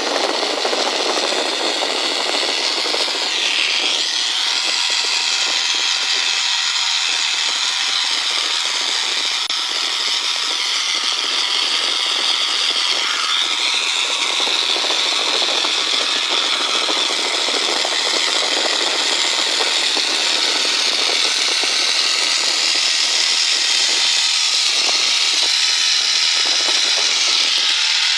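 Helicopter in flight heard in the cabin through the intercom: a steady turbine whine over a rushing noise. Its high tones dip briefly about four seconds and about thirteen seconds in.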